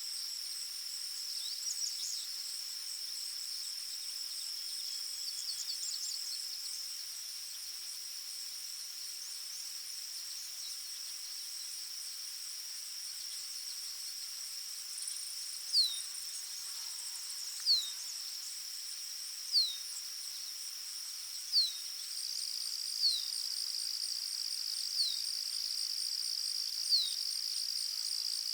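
Forest ambience: a steady high-pitched insect chorus with a pulsing trill above it. From about halfway a bird repeats a short falling whistle about every two seconds, seven times, with a few scattered chirps earlier.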